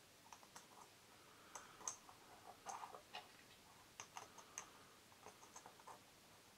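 Faint, irregular small metallic clicks and ticks as fingers push bicycle spoke nipples into drilled holes in the thin metal top of an empty whipped-cream can, where they sit loosely.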